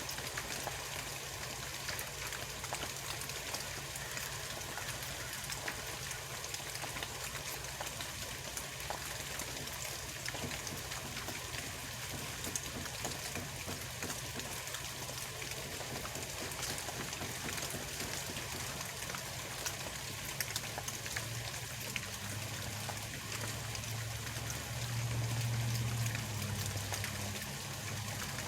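A low engine drone from trucks in an industrial yard over a steady hiss with fine crackle; the drone swells louder for several seconds near the end.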